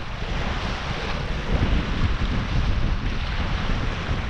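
Wind buffeting the microphone over small waves breaking and washing across a concrete shore: a steady, gusty rumble with a hiss of surf on top.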